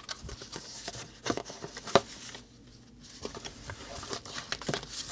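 Paper and thin card rustling as a folded instruction sheet is opened out and the sheets inside are slid out, with scattered sharp taps and clicks, the loudest about two seconds in.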